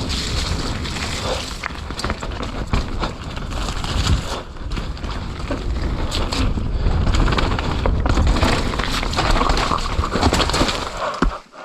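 Mountain bike ridden fast downhill on a wet dirt trail: wind buffeting the microphone, tyres on dirt, and a steady run of knocks and rattles from the bike over rough ground. The noise drops away abruptly near the end.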